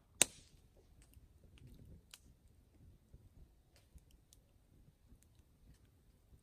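Campfire crackling: one sharp pop just after the start, then scattered faint crackles.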